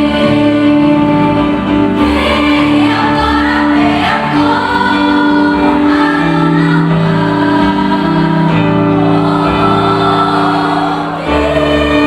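A choir singing in harmony, holding long sustained chords that change in steps, with a brief drop in level about eleven seconds in as a new chord begins.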